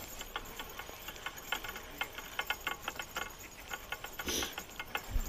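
Spinning reel cranked to wind in a feeder rig, its mechanism ticking quickly and unevenly as the handle turns, with a short rustle near the end.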